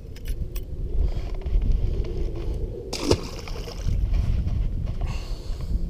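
Wind buffeting the microphone in a low rumble, with a splash about three seconds in as a caught bass is dropped back into the water.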